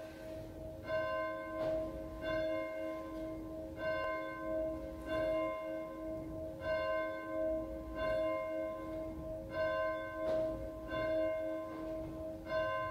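A single church bell tolling, struck about every one and a half seconds, its lower hum ringing on steadily between strikes.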